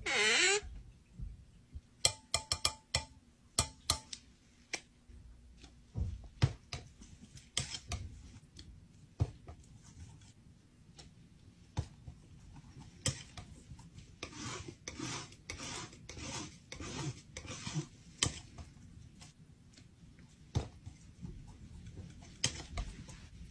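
Palette knife scraping and spreading paint on a palette as colours are mixed: many short scraping strokes with occasional sharp clicks of the blade, the strokes thickest towards the middle. At the very start there is a brief falling swoosh.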